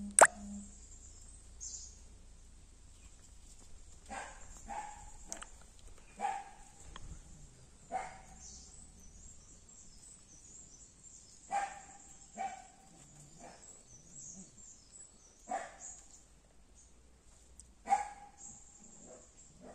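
A dog barking now and then, single short barks a few seconds apart. A sharp click just after the start is the loudest sound.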